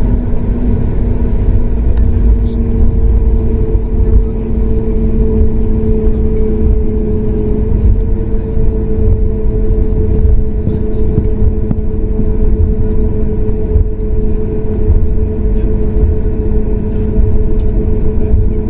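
Cabin noise of a Boeing 737 MAX 8's CFM LEAP-1B engines running at low power while the aircraft taxis: a steady loud rumble with a constant two-note hum.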